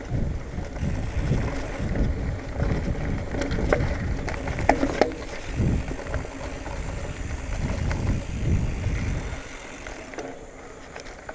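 2019 Marin Bobcat Trail 5 hardtail mountain bike ridden over a bumpy dirt trail: tyres rumbling on the ground, with the frame and drivetrain rattling and clattering over bumps. The sharpest clatters come around the middle, and it quietens about a second and a half before the end.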